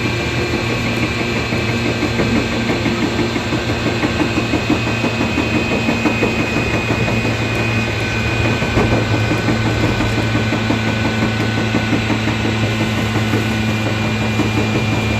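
JR 415 series 1500-subseries electric train (set Fo1521) running, heard from inside the carriage: the MT54 traction motors and gearing hum low, with a steady high-pitched, jet-like whine on top. The whine is an abnormal noise that most other sets of the class don't make, and its cause is unknown.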